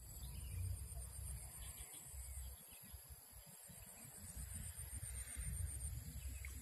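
Faint outdoor ambience: a steady, high, evenly pulsing insect trill over an uneven low rumble of wind on the microphone.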